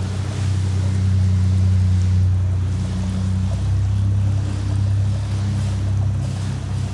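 A motor running with a steady low hum that wavers slightly in pitch.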